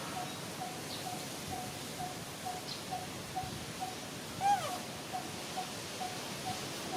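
A baby macaque gives one short squeaky call that rises and falls, about four and a half seconds in. Behind it runs a steady series of short identical notes at one pitch, about two a second.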